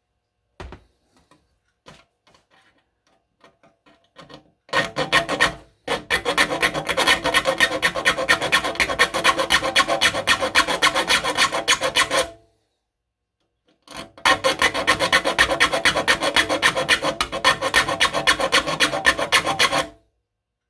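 Metal file rasping across a hand saw's teeth in quick back-and-forth strokes, sharpening the dull saw. It comes as two long runs of filing, the first starting about five seconds in and the second about fourteen seconds in, with a short pause between; a few light clicks come before the first run.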